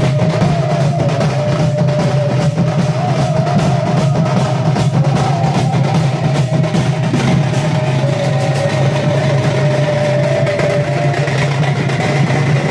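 A street troupe of Sambalpuri drummers beating dhols and other shoulder-slung drums in a dense, fast rhythm, with a wavering melody line held above the drumming.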